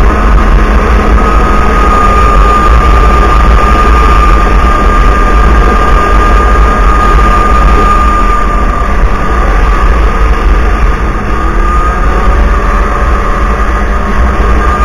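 Snowmobile engine running at a steady trail-cruising speed, with a steady high whine over a heavy low rumble.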